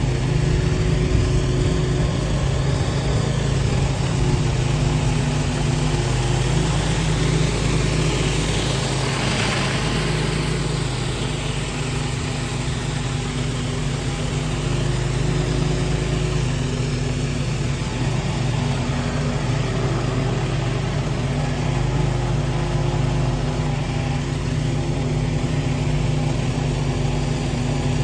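Pressure washer's small gasoline engine running steadily, with the hiss of the high-pressure water spray on concrete, which swells briefly about a third of the way in.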